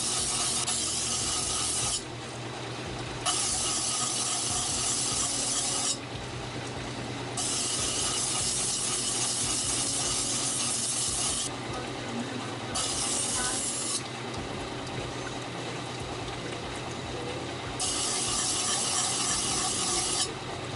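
Knife blade being ground for sharpening: a high, harsh hiss that starts and stops abruptly in five stretches of one to four seconds, over a low steady hum.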